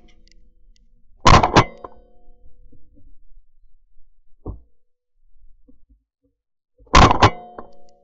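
Two shotgun blasts about six seconds apart, each followed within a fraction of a second by a second report, with a short ringing tail. The second blast is fired down at the water among the decoys, sending up a splash of shot. A dull knock comes in between.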